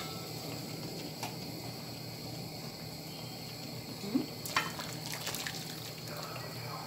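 Chicken broth being poured from a pot into a pan of sliced potatoes, liquid splashing in, with a couple of knocks of the pot against the pan about four seconds in. A steady faint hiss runs underneath.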